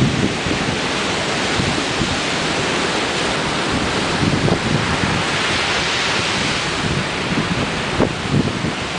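Ocean surf breaking and washing ashore in a continuous rush that swells around the middle, with wind buffeting the microphone in a few low thumps near the end.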